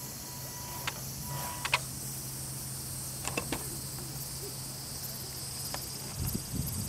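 Steady high-pitched insect chirring, with a few sharp clicks and some low thumps near the end.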